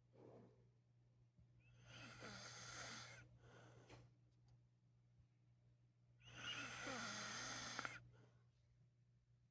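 A man snoring in his sleep: two snores, one about two seconds in and a longer, louder one about six seconds in, with a steady low hum underneath.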